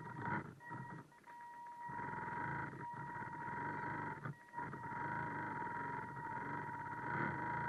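Small electric motor of a radio-controlled boat whining steadily over a buzzing hum, heard from the camera on board, dipping briefly a few times as the throttle eases.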